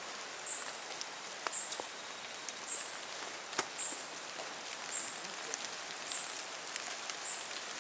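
Tropical forest ambience: a short, high insect chirp repeats steadily about once a second over a steady hiss. Scattered light snaps and crackles come from footsteps on leaf litter and twigs.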